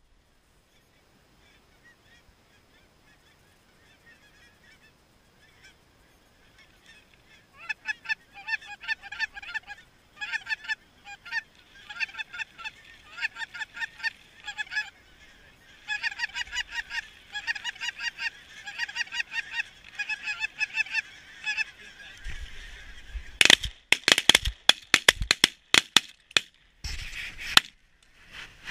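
Flock of geese calling: faint at first, then from about seven seconds in a dense chorus of many overlapping short, high, repeated honks. Near the end a few loud sharp knocks close to the microphone cut in over the calls.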